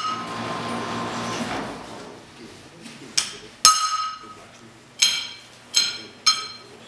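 Hammer striking a steel punch to put a permanent mark on a steel bar: five sharp, ringing metallic strikes in the second half.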